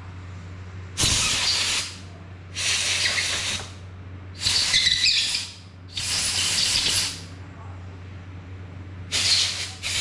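Aerosol spray can sprayed in five short hisses of about a second each, over a steady low hum.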